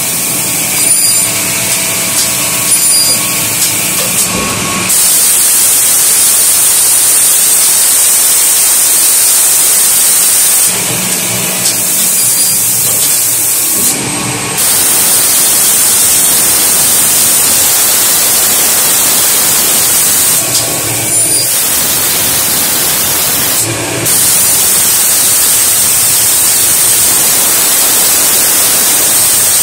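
ALCA AL-CA9 automatic edgebander running, with a steady hiss and high whine from its cutter motors. Three spells of louder, even rushing noise, each about six seconds long, start and stop sharply as panels feed through the machining units.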